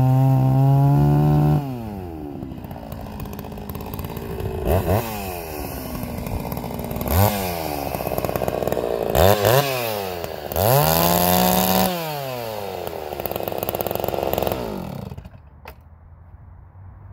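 Holzfforma G660 two-stroke chainsaw finishing a cut through a log, then idling and revved in several short throttle blips and one longer rev, each rising and falling back. The engine stops about fifteen seconds in.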